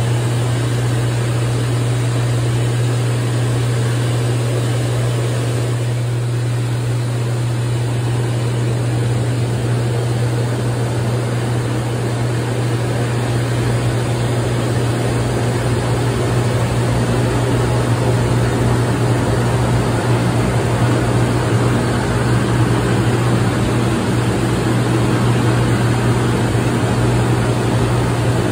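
Hydromassage bed running: the pump's steady low hum over the rushing of its water jets, growing slightly louder in the second half.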